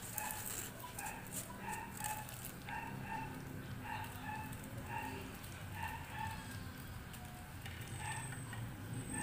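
Short, pitched animal calls repeating about twice a second, often in pairs, in the manner of a dog yapping, over a low steady hum.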